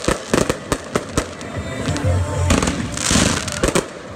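Fireworks bursting overhead: a rapid string of sharp bangs and crackles, with a hissing crackle of glittering stars about three seconds in and more bangs near the end.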